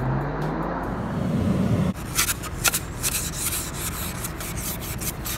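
A BMW 520i (E60) driving off, its engine note rising, cut off about two seconds in. Then a plastic ice scraper scratches frost off a car windshield in repeated strokes.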